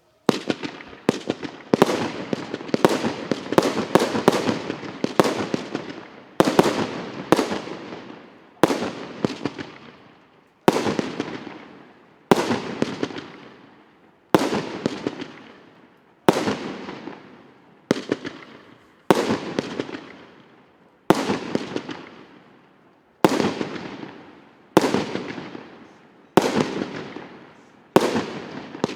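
A 100-shot, 1.2-inch (35 mm) firework cake firing. Shots come in a rapid cluster of several a second at first, then settle into single shots about every second and a half to two seconds, each followed by a fading crackle.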